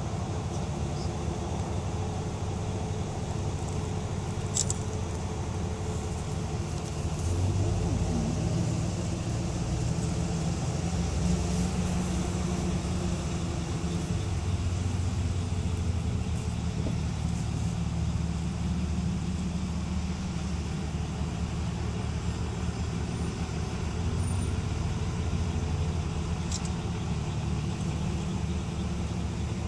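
Car engine and road noise, a steady low hum that gets a little louder about seven seconds in.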